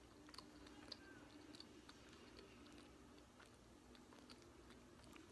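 Faint chewing of a sticky, chewy nut bar: soft, scattered mouth clicks over a low steady room hum.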